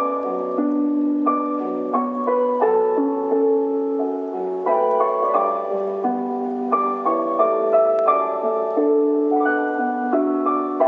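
Noon chime melody played over a municipal disaster-prevention radio's outdoor loudspeakers: a slow electronic tune of sustained chords, the notes changing every half second or so.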